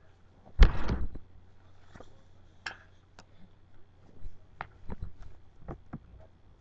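A loud thump with a brief rustle about half a second in, then scattered light clicks and taps: handling noise close to the microphone.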